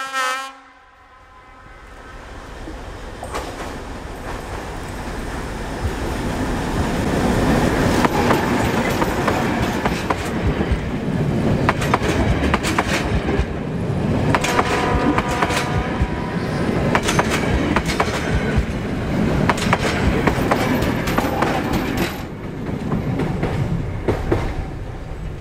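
Horn of a vintage diesel locomotive cutting off about half a second in. The diesel-hauled passenger train then approaches and passes close by, engine running and the coaches' wheels clicking over rail joints, easing off near the end.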